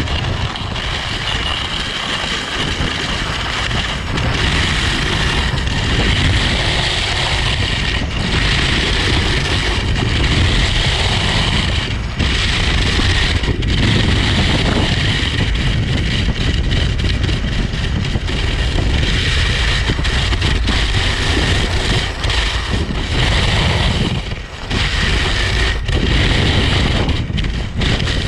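A ski running over packed snow, heard through a camera mounted on the ski itself: a continuous rumbling scrape with a hiss on top, with brief dips now and then.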